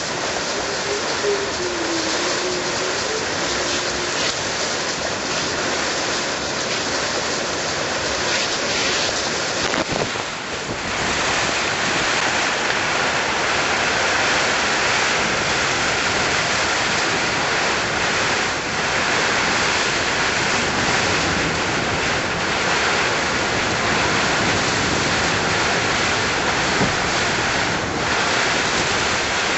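Torrential rain and strong wind of a Category 4 cyclone: a loud, dense, steady rush of noise, turning brighter and a little louder about ten seconds in.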